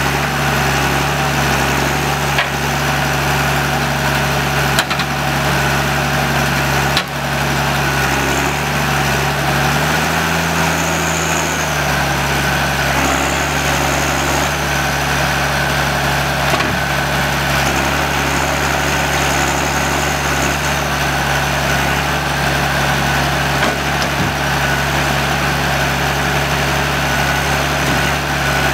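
John Deere 1110D forwarder's diesel engine running steadily, its pitch rising briefly about ten seconds in. A few sharp knocks sound in the first seven seconds.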